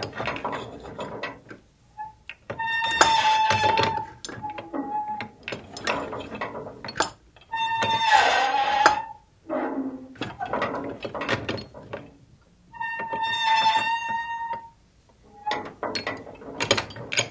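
Iron boat rocking on waves, its metal creaking and clanking. Three long squeaking tones come about five seconds apart, among irregular knocks and clanks.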